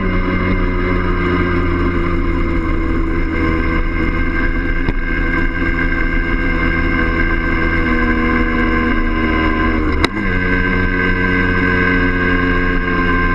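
Yamaha DT50M's small single-cylinder two-stroke engine running steadily at cruising speed, heard from the rider's own bike. A single sharp click about ten seconds in, with the engine note dipping briefly and picking back up right after it.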